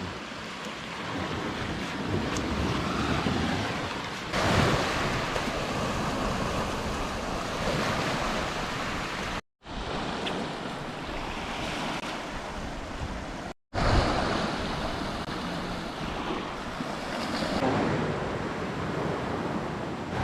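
Sea waves washing onto a beach with wind buffeting the microphone, swelling and easing. The sound drops out completely twice, briefly.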